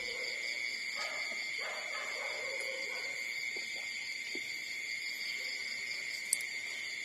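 Newborn puppies whimpering faintly, with a few short falling whines in the first few seconds, over a steady high-pitched hum. A single sharp click near the end.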